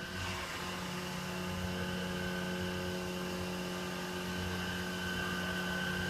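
Hydraulic elevator's drive machinery running as the car travels, a steady hum with a constant whine on top.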